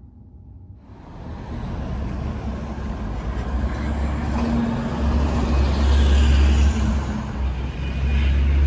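City street traffic: cars and a city bus running past, with a heavy low rumble. It starts suddenly about a second in and is loudest in the middle and near the end.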